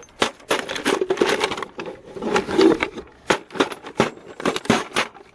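Irregular clatter of sharp knocks and clicks, some in quick clusters, with no motor running.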